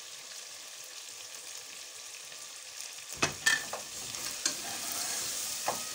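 Mutton paya cooking in an aluminium pressure-cooker pot on a gas burner: a steady sizzling hiss. About three seconds in, a metal spoon stirs the pot, clinking and scraping against the metal a few times.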